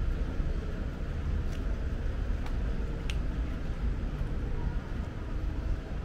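Outdoor town ambience: a steady low rumble with a few faint, short ticks.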